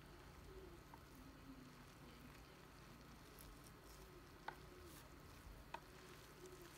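Faint squishing and crackling of a gel-bead mesh stress ball being squeezed by hand, with three soft clicks spread through it.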